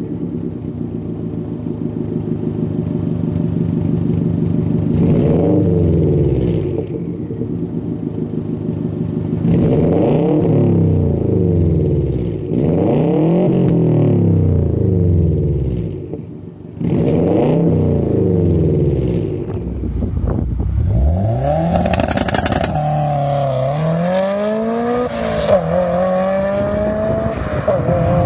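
Subaru Impreza WRX STi turbocharged flat-four revved repeatedly at a standstill through an Afterburner Raptor aftermarket exhaust, each blip rising and falling. Later a WRX STI with an HKS exhaust accelerates hard: the pitch climbs, drops at a gear change, then climbs again.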